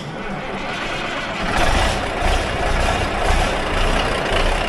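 Big Bud 600/50 tractor's diesel engine starting up and running, growing louder about a second and a half in, then holding steady.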